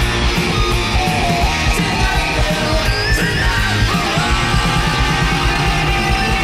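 Heavy metal band recording: loud distorted electric guitar over bass and driving drums.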